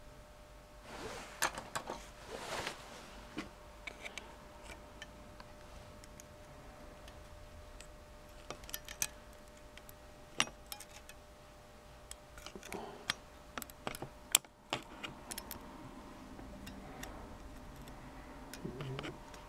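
Irregular small metallic clicks and taps as a thin tool and a bob-weight spring are worked against the alloy housing of a BMW motorcycle ignition advance unit, hooking the spring onto its post.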